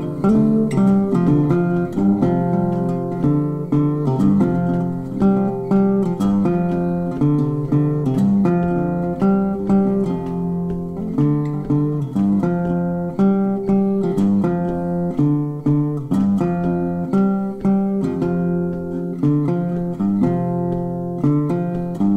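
Background music: a guitar plucking notes and chords in a steady, repeating rhythm.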